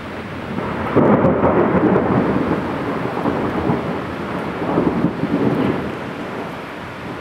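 Heavy rain falling steadily, with a rumble of thunder that breaks in suddenly about a second in, swells again around five seconds and eases off near the end.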